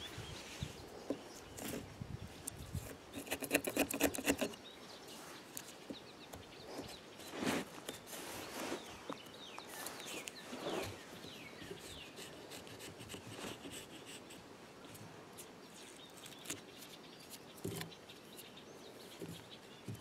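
Mora carving knife shaving the bark off an elm root: a run of quiet, short scraping strokes, with a quick burst of strokes about three to four seconds in and a few stronger single strokes later.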